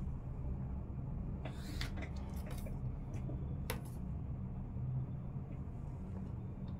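Tailor's chalk drawn across fabric along a ruler in a few short strokes, marking guide lines, over a steady low hum.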